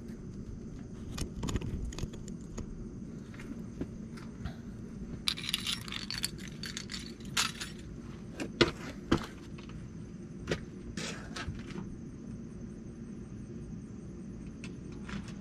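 Metal tools and parts clinking and jangling: a jangling rattle about five seconds in, then a run of sharp clinks, over a steady low rumble.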